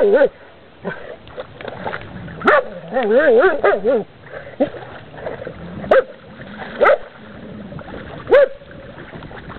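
A dog whining at a tortoise it can't work out: a warbling whine that wavers up and down for about a second and a half, then three short, sharp yips spaced a second or so apart.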